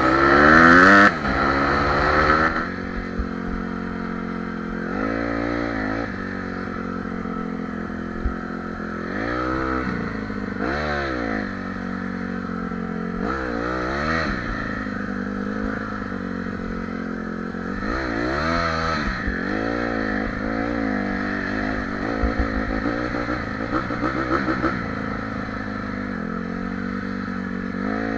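Honda CRF150R dirt bike's single-cylinder four-stroke engine running on the trail, its pitch rising and falling several times as the throttle is opened and eased off.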